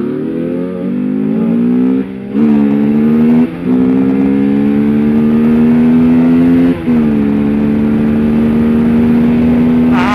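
Modified Bajaj Pulsar RS200's single-cylinder engine accelerating hard through the gears during a race: the pitch climbs, breaks briefly at upshifts about two, three and a half and seven seconds in, then holds steady at speed.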